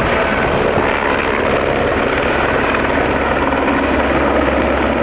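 Firefighting helicopter hovering while it takes on water, its rotor and engine running loud and steady.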